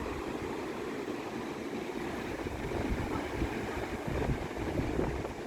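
Ocean waves rolling and breaking on the shore as a steady wash, with wind gusting over the microphone.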